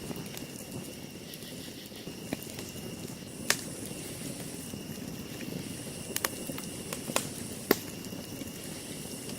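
Wood campfire burning with a steady low rustle and about five sharp pops and crackles, the loudest about a third of the way in and again near the end.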